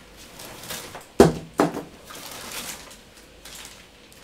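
Two sharp knocks about half a second apart, the first the louder, amid light rustling of things being handled.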